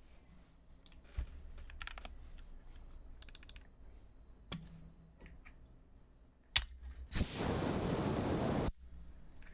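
Keystrokes on a Bakeneko65 mechanical keyboard with lubed Gateron Milky Yellow switches and PBT keycaps: sparse, faint clacks at first, then two sharp clacks about six and a half and seven seconds in. A loud, steady rushing noise follows for about a second and a half and cuts off suddenly.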